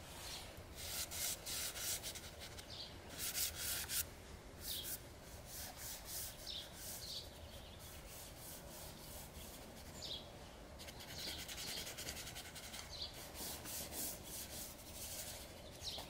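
Dry pastel stick scratching across sketchbook paper in quick strokes, each under a second, coming in runs with short pauses between them.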